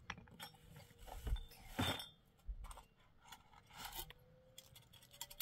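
Scattered light knocks and clicks with a few clinks, irregular and denser near the end, as of small things being handled.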